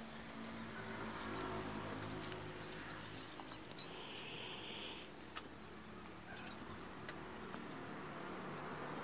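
Insects chirring in the background, a high, evenly pulsing trill, with a few faint sharp clicks near the middle.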